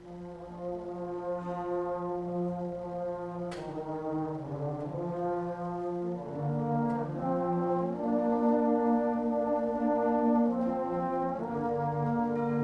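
School concert band playing slow, sustained brass-led chords that change step by step, entering softly and swelling louder over the first several seconds.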